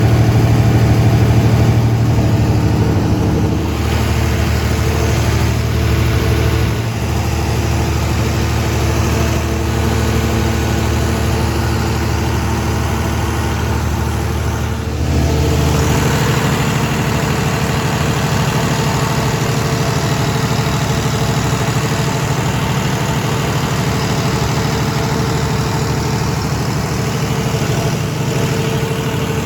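Perkins diesel engine of a 150 kVA silent (enclosed) generator set running steadily, its tone shifting slightly about 4 seconds and again about 15 seconds in.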